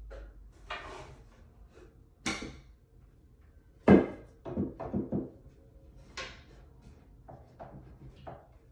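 Wooden shelf boards knocking and thudding as they are shifted and set in place on a bookcase being assembled. The sharpest knock comes about four seconds in, followed quickly by three more, with lighter taps near the end.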